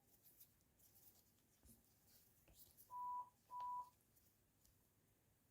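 Two short electronic beeps at one steady pitch, about half a second apart, a few seconds in; otherwise near silence.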